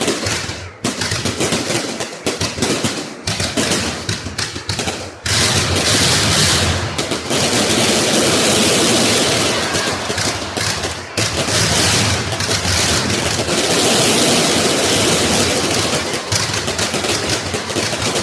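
Fireworks going off. For about five seconds there are rapid runs of sharp bangs, and then they merge into a dense, continuous crackling barrage that keeps going with only a brief lull about two-thirds of the way through.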